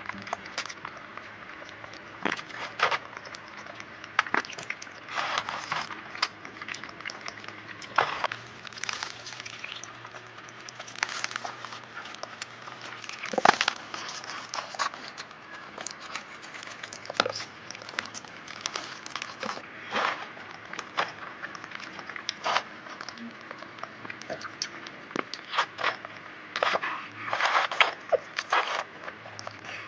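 Close-miked eating: irregular crunching, crackling and smacking chewing sounds, with sharp clicks scattered throughout and the loudest bite about halfway through.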